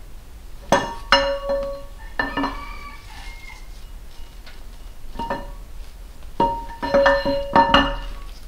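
Steel camshaft being slid into a Farmall M engine block, clinking and ringing against the block and cam bearings in scattered knocks, a cluster about a second in and another near the end.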